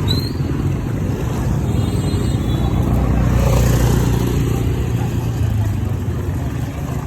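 Motor vehicle engine running steadily, with road noise that swells a little around the middle.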